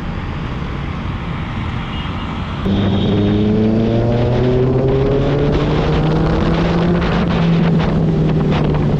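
A steady rush of noise, then about a third of the way in a motorcycle engine comes in loud on a riding camera mic, pulling steadily with its pitch rising slowly as the bike gains speed, with some wind buffeting over it.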